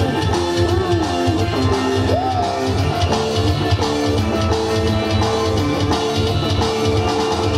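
Live dangdut band music with a steady, pulsing drum beat under a melodic line of held notes that slide in pitch.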